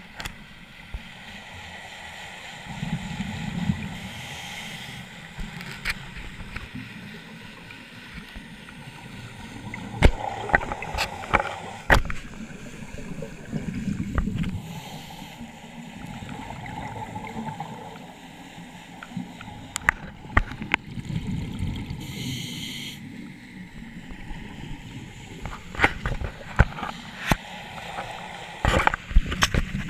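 Scuba diver breathing through a regulator underwater: a gurgling rush of exhaled bubbles every five to seven seconds, with a brief hiss of inhaling through the regulator now and then. Occasional sharp knocks sound between breaths.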